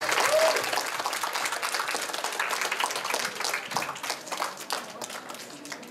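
Audience applauding, loudest at the start and thinning out gradually.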